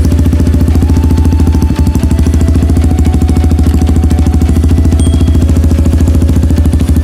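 Honda CRF150L single-cylinder four-stroke engine idling through a Radamel Racing aftermarket exhaust, loud with a steady, even pulsing beat.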